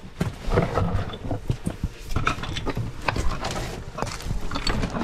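Irregular scraping, shuffling and knocking of a person squeezing through a narrow rock crevice, with a low rumble underneath.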